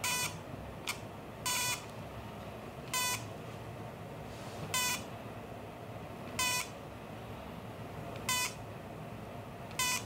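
Handheld intramuscular electrical stimulation (IMES) pen beeping while it is held on the trapezius muscle: short electronic beeps about every one and a half to two seconds.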